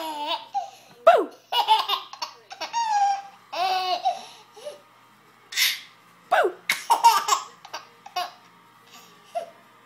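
Baby laughing in repeated short bursts of belly laughs and high squeals, thinning out near the end.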